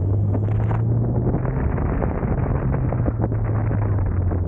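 Nissan SR20DET turbocharged four-cylinder engine running as the 240SX drives along, its note rising slightly and easing back, under heavy wind noise rushing in through the missing windshield.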